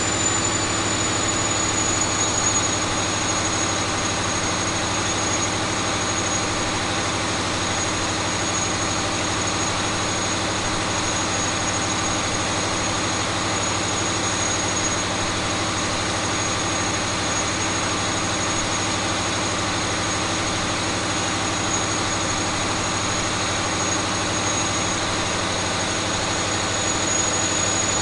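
Caterpillar 3508B V8 diesel engine running steadily on a dynamometer, with a high thin whine held over the engine sound.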